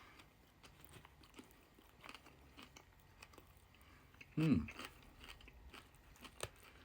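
A person chewing a mouthful of salad close to the microphone, with soft wet crunching and small clicks of the mouth. About four and a half seconds in there is a short "mm" with a falling pitch.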